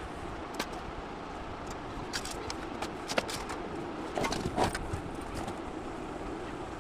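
Steady background rumble with a few sharp clicks and knocks scattered through it, the loudest cluster about four and a half seconds in.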